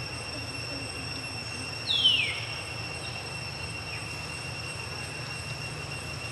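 Steady high-pitched insect drone over a low background rumble. About two seconds in, a single short high call glides downward in pitch and is the loudest sound.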